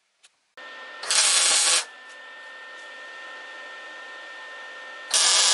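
A metalworking tool running steadily, with two loud, harsh bursts of work on the steel, each under a second, about four seconds apart.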